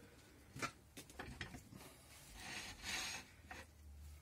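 Faint handling sounds at a stopped wood lathe: a few light clicks and taps, then a short rubbing, scraping swell about two and a half seconds in, as a hand works over the bark-covered workpiece and tool rest.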